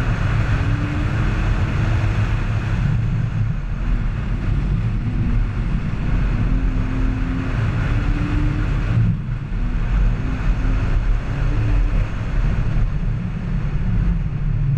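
Car engine revving up and down through an autocross run, its pitch climbing and falling back repeatedly, under a heavy low rumble.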